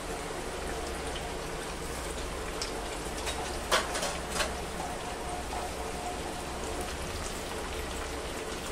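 Cornflour-dusted sweet potato fries deep-frying in very hot oil: a steady, crackling sizzle of vigorous bubbling, with a few sharp clicks about four seconds in.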